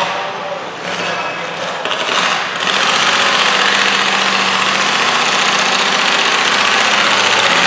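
Stock garden tractor's engine running at the start line of a pull, jumping louder about two and a half seconds in and then holding at a steady high throttle.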